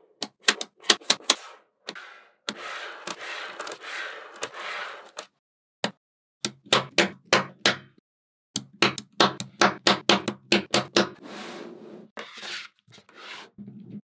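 Small magnetic balls clicking sharply as they snap together, in quick irregular runs, with a few seconds of rattling and sliding as a clump of balls is moved around, about a third of the way in.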